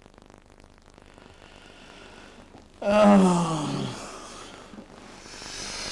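A man's long groan, falling in pitch, about three seconds in, like someone waking groggily.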